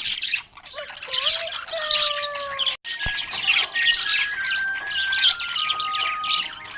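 Budgerigars chirping and warbling in a busy, continuous chatter of quick high chirps, over background music with held notes that step in pitch. The sound cuts out for a split second just before the middle.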